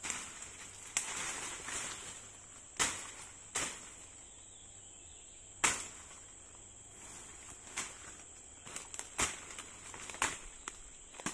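Brush and roots being cleared by hand: irregular sharp whacks, about eight of them spaced a second or two apart, with rustling of vegetation between. A steady high insect drone runs underneath.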